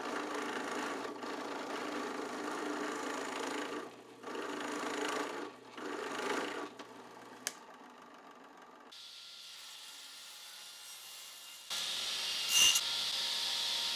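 Drill press running and boring into a hardwood block: one long steady plunge of about four seconds, then two shorter plunges. About twelve seconds in, a table saw running and ripping a thin strip of wood, with a sharp crack partway through the cut.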